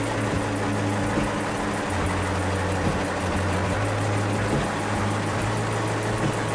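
Mercedes-Benz diesel engine of a 350 kVA generator set running steadily during a performance test, a loud, even mechanical noise.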